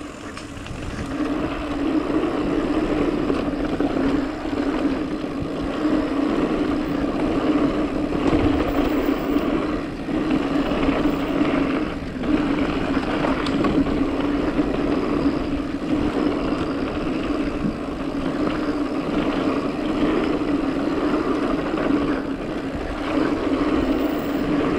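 Mountain bike rolling fast down a dirt trail: steady tyre and drivetrain noise with a steady hum, broken by a few brief knocks from bumps.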